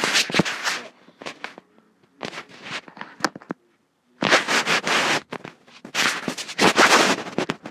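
Handling noise on an iPad's built-in microphone: crackling, scraping rustles in several bursts as the tablet is held and touched close to the mic, with the loudest stretches in the second half.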